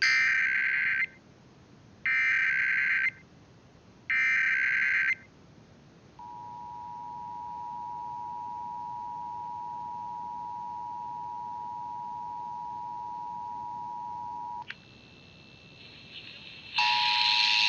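Emergency Alert System header: three one-second bursts of data tones, a second apart. Then the EAS two-tone attention signal sounds, a steady dual tone held about eight seconds that cuts off abruptly. Near the end a louder, noisier sound carrying tones comes in.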